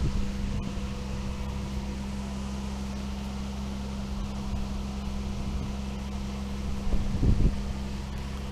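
Tow truck's engine running steadily with a low, even hum, with wind buffeting the microphone about seven seconds in.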